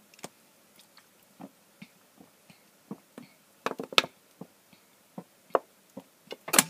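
A person gulping a drink from a plastic bottle: a quiet run of swallows and mouth clicks, about three a second, with a few louder clicks around four seconds in and again near the end.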